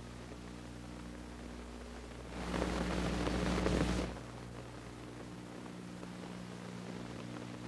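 Steady low electrical hum from an old tape transfer with no other sound. About two and a half seconds in, a burst of hiss or static rises over it for under two seconds, then cuts off.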